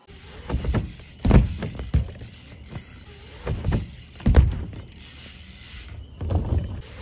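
BMX bike riding a quarter pipe: a series of heavy thuds from the wheels striking and landing on the ramp, the loudest just after the rider hits the lip about four seconds in.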